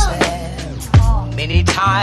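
Upbeat music with drum hits, a steady bass line and a voice singing over it.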